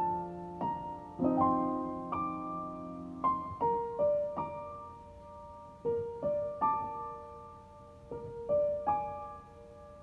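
Slow background piano music: single notes and chords struck and left to ring and fade.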